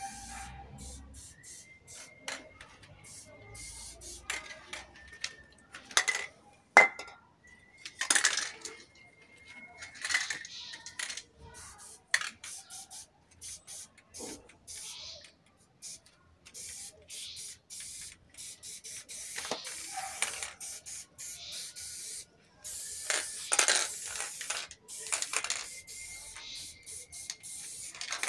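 Aerosol spray-paint cans hissing onto a wall in many short and longer bursts, with a few sharp clicks between them.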